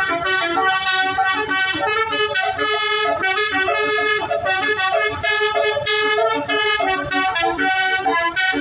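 Bus basuri musical air horn playing a continuous tune, several reedy tones sounding together and stepping from note to note.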